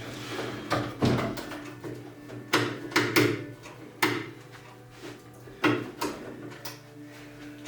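Irregular metal knocks and clanks from a microwave oven's casing and parts being handled and taken apart, about ten sharp hits with a short ring after each.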